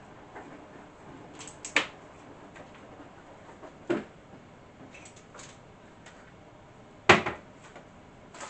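Kitchen tidying clatter: a few separate knocks of items being set down and moved on a worktop, the loudest about seven seconds in.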